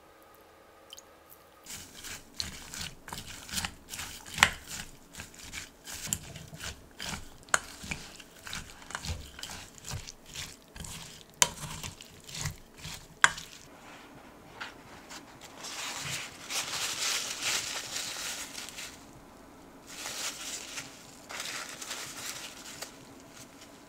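Silicone spatula tossing shredded daikon salad in a stainless steel bowl: wet rustling and scraping, with several sharp clicks of the spatula against the metal. In the last third, kitchen paper crinkles in two spells as tofu is wrapped and squeezed in it.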